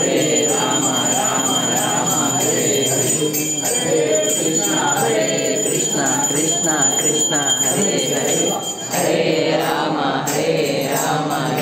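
A group of voices singing a devotional chant together, with a hand bell ringing steadily over it; the bell stops about nine seconds in while the singing goes on.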